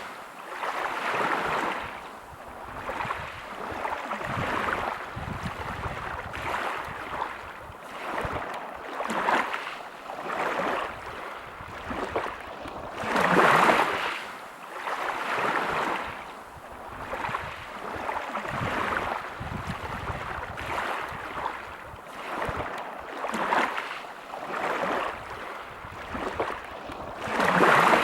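Sea waves breaking and washing over a pebble beach, swelling and ebbing every second or two, with a louder wave about halfway through and another near the end.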